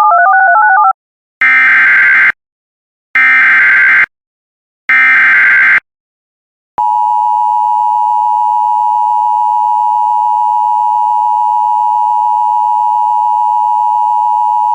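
Emergency Alert System broadcast tones. A brief warbling tone switches between two pitches, then three short bursts of the SAME digital header screech, each about a second long with a second's gap between them. From about seven seconds in, the steady two-tone EAS attention signal sounds, announcing the warning message that follows.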